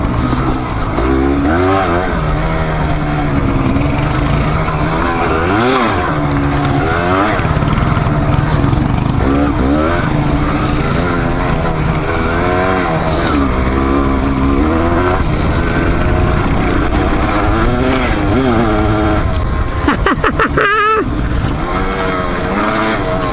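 Dual-sport motorcycle engine riding off-road trails, its pitch rising and falling repeatedly as the throttle is worked.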